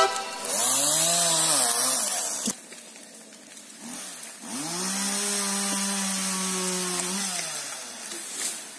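Two-stroke chainsaw revved up twice while cutting up a fallen tree: a short run about half a second in that drops away after two seconds, then a longer run at steady high revs from about four and a half seconds that falls back near seven seconds.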